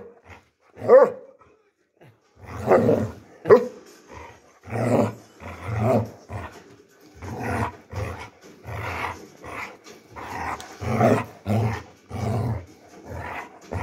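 Basset hound play-growling in repeated short bursts, about one a second, with a couple of sharper barks in the first few seconds.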